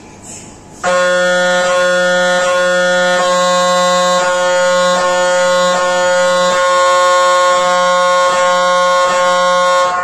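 GE MRI scanner's gradient coils sounding during a scan sequence: a loud, steady, fixed-pitch tone that starts about a second in, with a brief break in it about every 0.8 seconds.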